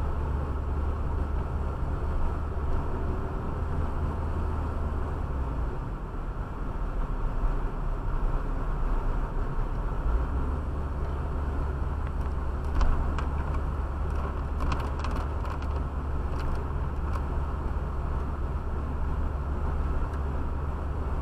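Car driving at about 40 km/h, heard from inside the cabin: a steady low rumble of engine and tyre noise, with a few faint clicks about halfway through.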